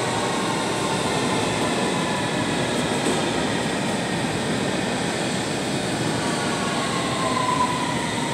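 London Underground train running into the station along the platform: steady rumble and rail noise, with a motor or brake whine that falls slightly in pitch and grows louder near the end as the train slows.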